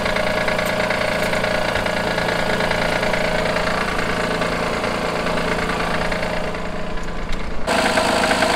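Honda J30A9 V6 engine idling cold with a fairly strong, rapid knock: a cold-start knock caused by a faulty timing belt tensioner. The tone of the engine sound changes abruptly near the end.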